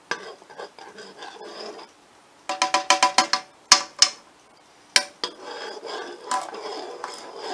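Metal utensil stirring gravy in a stainless steel saucepan: soft scraping, with a quick run of ringing clinks against the pot about two and a half seconds in, then a few single clinks.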